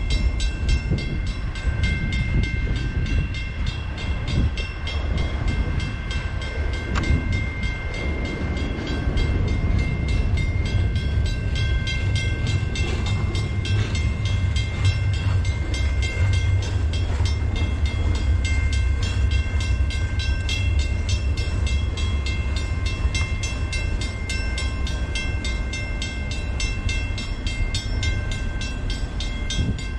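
Canadian Pacific double-stack container train rolling past over a level crossing, its cars giving a continuous low rumble and rail clatter. Over it, the crossing bell rings steadily.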